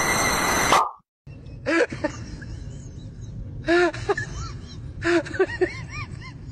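A loud hiss with steady high tones cuts off suddenly about a second in. After a short gap comes a series of short, high-pitched vocal calls that rise and fall, some single and some in quick runs of two or three.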